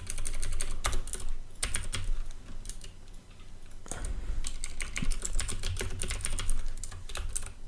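Typing on a computer keyboard: quick key clicks in short runs, thinning out for a second or so about halfway through.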